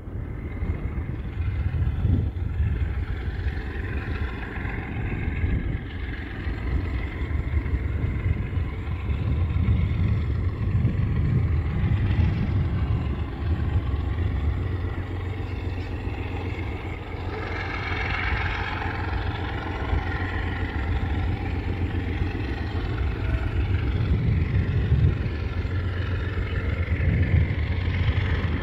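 GE diesel-electric freight locomotive running under power as it approaches, a steady low rumble. Dark exhaust smoke from the lead unit shows the engine working hard.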